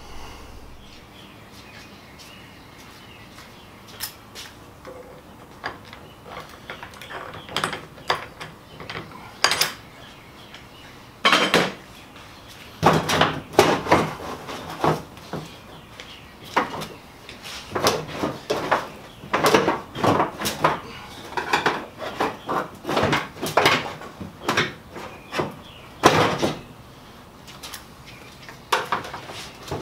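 Irregular metallic clinks, knocks and clatter of hand tools and car parts being handled, as work goes on at the front of the car.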